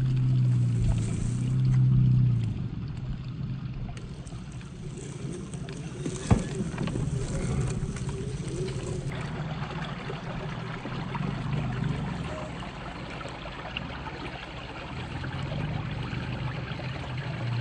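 Scale RC crawler's 550 brushed electric motor and gear drivetrain whining as it drives, the low hum swelling and easing off several times as the throttle comes and goes. One sharp knock about six seconds in.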